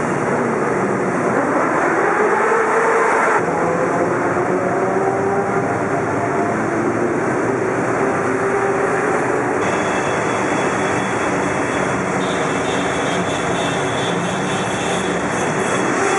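A procession of many motorcycles riding past inside a road tunnel: a continuous din of engines, with engine notes rising and falling as bikes go by.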